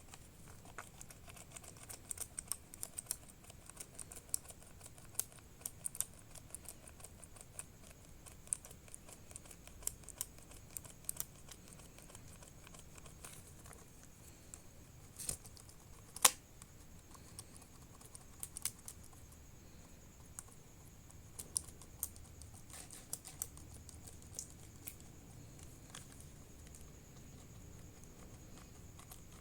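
Plastic toy water pistol being handled, giving small light clicks and taps at irregular intervals, with one sharper click about 16 seconds in.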